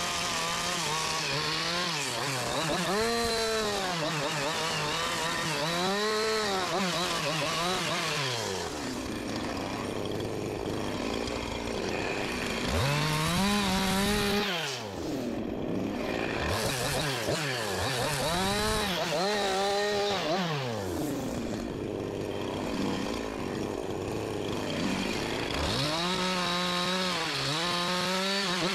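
Two-stroke gas chainsaw carving into a wooden log, the engine revving up and falling back every few seconds as each cut is made, dropping briefly to a low speed about halfway through before revving again.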